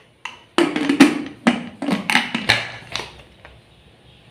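Aluminium pressure cooker lid being fitted and closed: a quick run of about half a dozen sharp metal clanks and scrapes over two and a half seconds.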